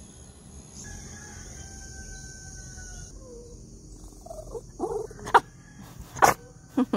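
A faint rooster crow over a steady high insect drone. Then, about four seconds in, a small curly-coated dog gives short excited yips and two sharp barks.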